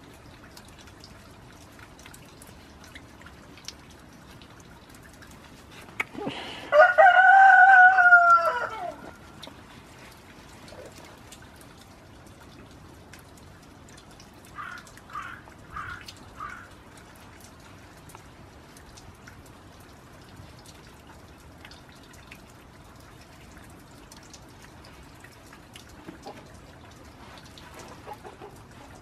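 A rooster crows once, a loud drawn-out call of about two and a half seconds a few seconds in, followed some seconds later by a quick run of four short clucks. Rain drips steadily throughout.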